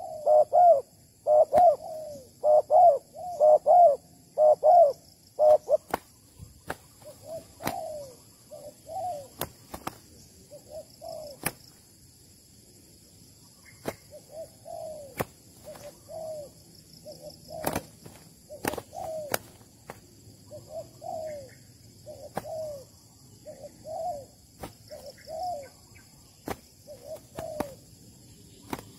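Spotted doves cooing: a quick run of loud coos in the first six seconds or so, then softer coos scattered through the rest. Now and then a sharp click cuts in.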